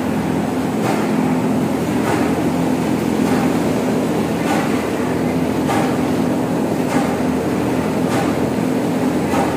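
Buffet sheet making machine running: a steady motor hum with a light click repeating about every 1.2 seconds as kraft paper feeds through its rollers.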